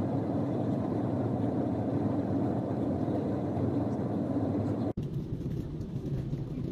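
Steady rush of jet airliner cabin noise, engines and airflow heard from a window seat in flight. About five seconds in it breaks off abruptly and resumes as a slightly quieter, duller stretch of the same kind of cabin noise.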